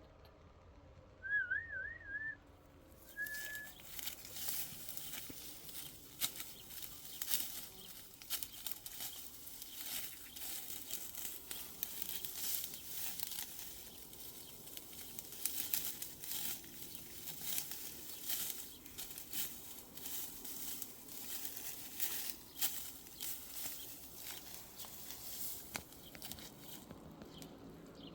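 Dry wheat stalks rustling and crackling in quick, irregular strokes, the sound of hand-harvesting ripe wheat. A short warbling whistle comes just before it, about a second in.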